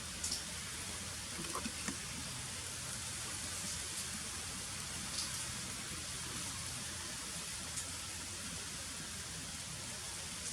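Steady rain-like hiss of wind moving through foliage, with a few faint ticks in the first two seconds.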